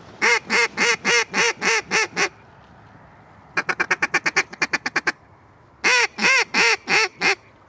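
Mallard-style duck call blown by a hunter. It gives a run of about seven loud quacks falling in pitch, then a fast feeding chatter of short clipped notes, then about five more quacks near the end.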